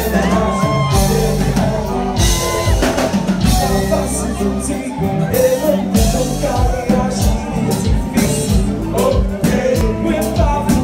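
Haitian konpa band playing: a steady drum beat and bass under a sung melody and guitar.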